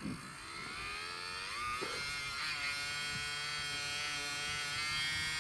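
Small electric fuel pump running, its whine rising in pitch as it spins up over the first two seconds and then holding steady while it pumps fuel from a can into the model plane's tank.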